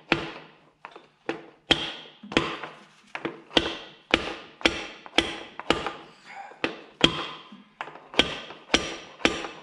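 Steady run of hammer taps, about two a second, each leaving a short ring, driving a John Deere B's power-lift piston with its new leather seal into its cylinder.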